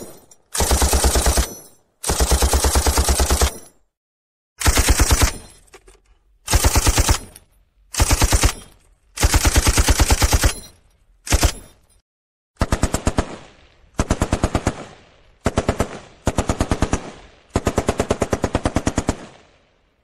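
Machine gun firing in about a dozen short bursts of rapid shots, with brief pauses between them. From about halfway through, the bursts have less low end and end in fading echoes.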